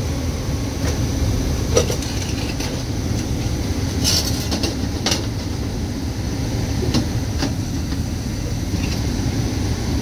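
Gas furnace running with its front panel off: the steady low rumble of the blower and burners, with a few sharp metal clicks scattered through it.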